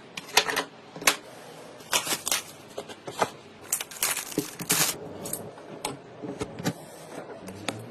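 Irregular clicks, taps and short rustles of computer parts and their packaging being handled, with a few sharper clicks standing out.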